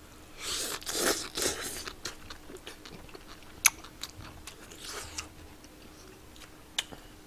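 Close-up chewing and crunching of food, in bursts, with two sharp clicks, one near the middle and one near the end.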